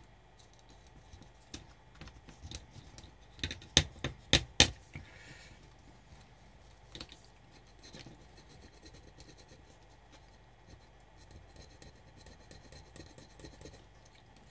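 Alcohol-soaked cotton bud scrubbing leftover flux off the solder side of a circuit board: faint scratchy rubbing. A run of about four sharp clicks comes about four seconds in.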